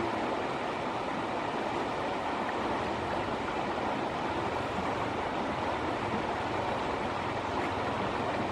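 River water flowing and rushing, a steady even wash of noise.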